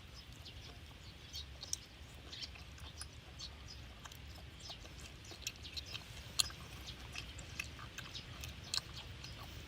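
Close-up wet chewing and mouth clicks of someone eating spicy seafood noodles coated in chili oil: irregular small clicks and squelches over a low hum.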